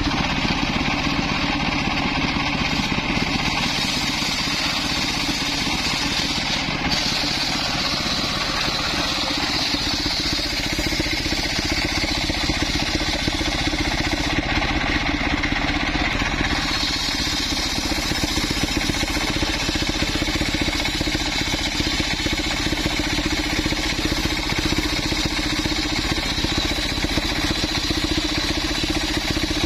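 Engine-driven mobile circular sawmill running steadily as its large blade rips a coconut trunk lengthwise into planks: a continuous engine drone with the blade's steady high tone over it.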